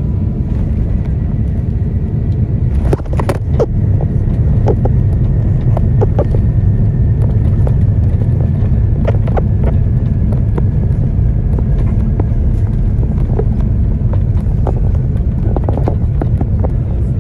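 Steady low rumble inside an airliner cabin as the jet taxis after landing, from the engines and the wheels on the taxiway, with scattered knocks and rattles.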